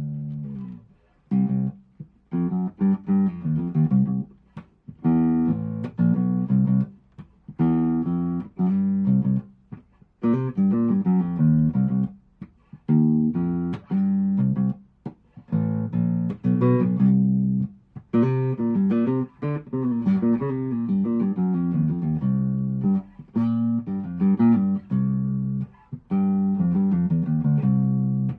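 Tokai Hard Puncher P-bass, a Precision-style electric bass, played solo in short phrases of plucked notes with brief pauses between them.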